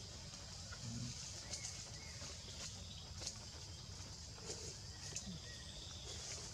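Quiet tropical forest ambience: a steady high buzz of insects, with scattered faint ticks.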